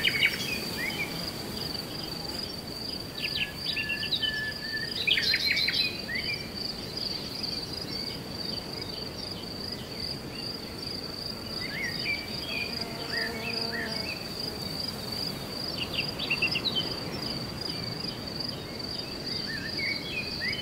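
A steady high insect trill runs unbroken, with clusters of short bird chirps and calls now and then, the loudest a little after five seconds in, over a low even outdoor hiss.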